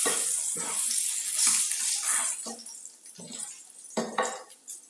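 Vegan burger patty sizzling in a stainless steel frying pan. The hiss is loud for the first two seconds or so, then quieter, with a few short scrapes and taps of a spatula on the pan.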